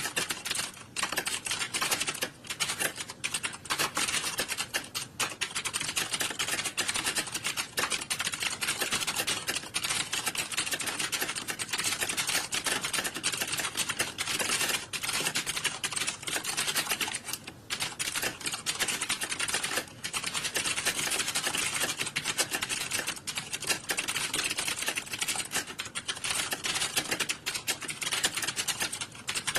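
Many computer keyboards being typed on at once in an exam hall: a dense, unbroken clatter of overlapping key clicks with only brief lulls.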